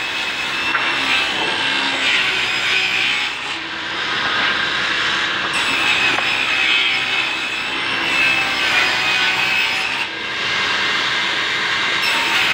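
Belt-driven circular saw bench, run by an electric motor, ripping timber into strips: a steady, loud cutting noise that dips briefly twice.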